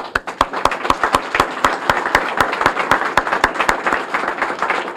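Audience applauding, breaking out suddenly and going on steadily.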